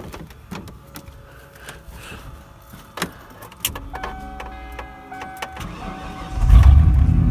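1995 Ford Bronco being started: clicks and handling noises, a repeating dashboard warning chime and the starter cranking, then the engine catches about six seconds in and runs loudly and steadily.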